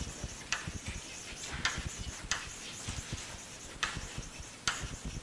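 Chalk on a blackboard as words are written out: light, irregular taps and short scratches, roughly one every half second to a second.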